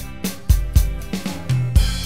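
Roland TD-12 electronic drum kit playing a steady rock beat, kick drum and snare hits falling every quarter to half second, along with a backing recording of the song's guitars and bass.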